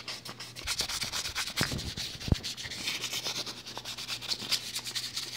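Wet/dry sandpaper rubbed by hand around the steel seal neck of a transfer case front yoke, fast rasping strokes smoothing the grooved sealing surface before a Speedi Sleeve goes on. A few sharper knocks come about two seconds in.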